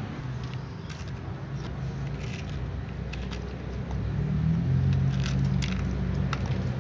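Cats crunching dry kibble, heard as scattered short sharp clicks, over a steady low rumble that grows louder about four seconds in.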